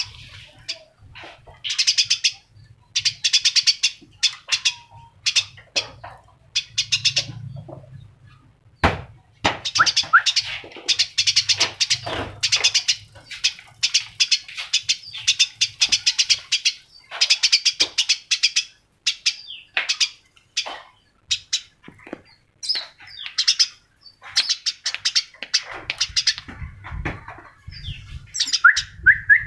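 A small songbird chirping in fast, high trills, phrase after phrase of about a second each with short gaps between.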